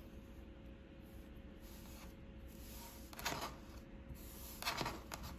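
Fingers rubbing and pressing a folded knit jersey hem down onto adhesive stabilizer tape: two short, soft fabric rustles, a little past three seconds in and near the end.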